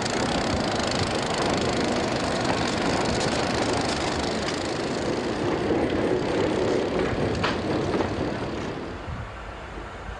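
EMD SW8 diesel switcher locomotives passing close by with a loaded train, engines running under power along with wheel and rail noise. The sound drops off sharply about nine seconds in.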